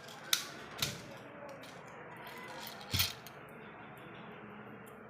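Airsoft pistol making sharp metallic clacks: two light ones in the first second and a louder one with a low thump about three seconds in.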